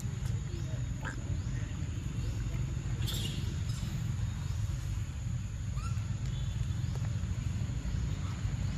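Outdoor forest ambience: a steady low rumble and a thin steady high-pitched hum, with a few brief faint animal calls, the clearest about three seconds in.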